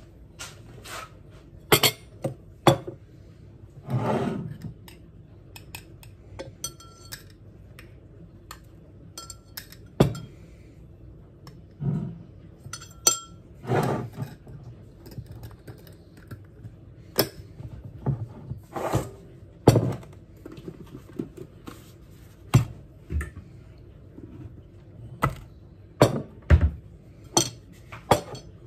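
Kitchen clatter: a metal spoon clinking against a drinking glass and a swing-top glass jar, with glass and jars set down and knocked on the counter. A couple of dozen separate clinks and knocks at irregular intervals, a few ringing briefly.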